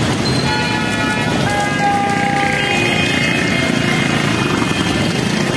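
Steady hiss of heavy rain and traffic on a wet city street, with vehicle horns sounding in held, pitch-shifting tones for about three seconds near the start.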